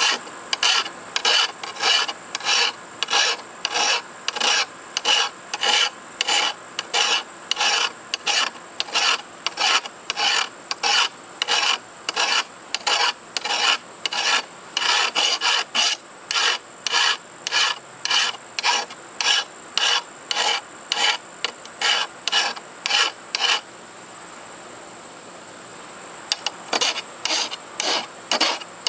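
Hand flat file rasping in strokes along the edge of a rusty steel lawn mower blade held in a vise, about two strokes a second. The strokes stop for a few seconds near the end, then resume.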